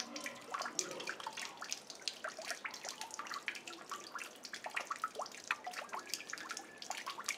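Water trickling and dripping in a stone courtyard fountain: a soft run of irregular small drips and splashes.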